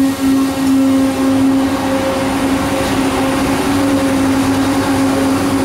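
VR Sm3 Pendolino electric train rolling slowly past along the platform as it pulls in. The train makes a steady hum over the rushing noise of the passing cars.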